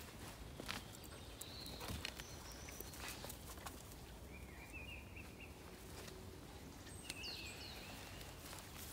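Faint outdoor ambience over a steady low rumble. Short bird chirps come about four to five seconds in and again about seven seconds in, and a few soft clicks and rustles sound as a dog's collar and leash are handled.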